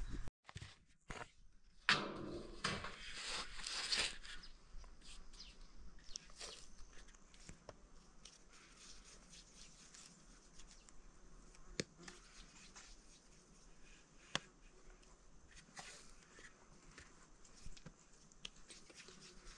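Soft, sticky sounds of bread dough being pulled by hand from a metal basin and pinched off into balls. There is a louder rustling scrape about two seconds in and scattered small taps throughout.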